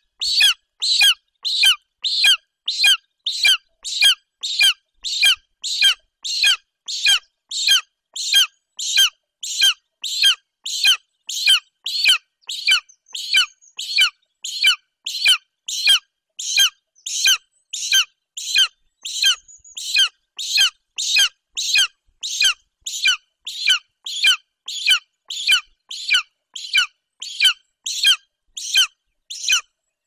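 Golden eagle nestling calling over and over, about two high calls a second, each sliding down in pitch, then cutting off suddenly at the end.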